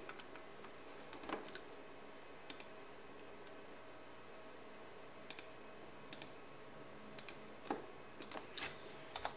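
Scattered faint clicks of a computer keyboard and mouse, single or in pairs, a few seconds apart, bunching up near the end.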